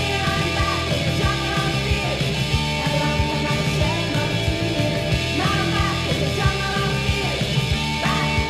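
Noise pop rock band recording: drums keeping a steady beat under electric guitar and bass in a dense mix.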